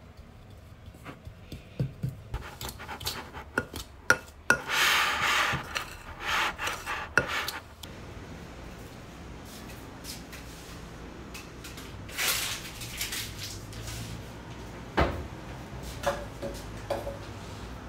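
A metal fork scraping and clinking in a glass mixing bowl, working butter and sugar together in quick, repeated strokes. In the second half it gives way to a few clinks of glass and containers on a kitchen counter over a low steady hum.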